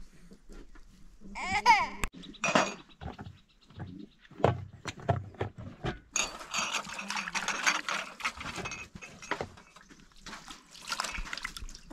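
Water splashing and sloshing in a metal tray as hands wash in it, starting about six seconds in. Earlier, a toddler cries briefly.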